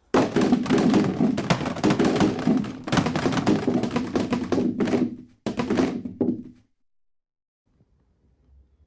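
Many hard plastic helmets clattering and knocking together as they tumble down into a heap: a dense, continuous run of hits with a brief gap about five and a half seconds in, stopping suddenly about a second later.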